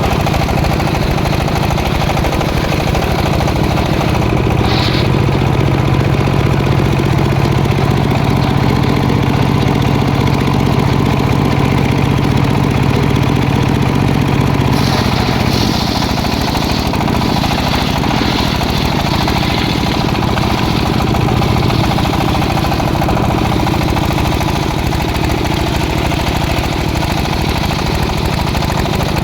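Engine of a sawmill saw running steadily, with a change in its tone about 15 seconds in.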